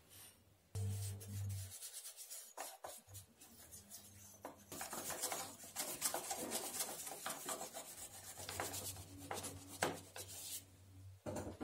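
A small brush scrubbing back and forth over a brass hinge in quick scratchy strokes, then a cloth rubbing over the brass, stopping suddenly near the end.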